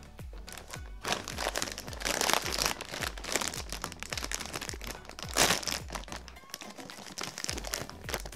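Plastic chip bag crinkling and rustling as it is handled and pulled open, with loud crackles about two seconds in and again about five seconds in, over background music with a steady repeating bass line.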